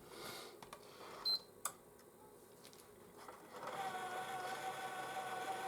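A short high beep and a click a little over a second in. From about three and a half seconds, a PS4's slot-loading Blu-ray drive runs with a steady motor whine as it slowly pulls a disc in. It is sluggish to load, which the owner puts down to rollers needing cleaning.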